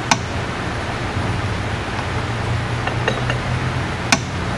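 Metal clicks of a test-fit tappet being dropped into and lifted out of a Harley Twin Cam 103 lifter bore: a sharp click just after the start, a few light ticks about three seconds in, and a louder click near the end, over a steady low shop hum. The one-thousandth-oversize tappet slides into the bore under its own weight, a slip fit with no shake.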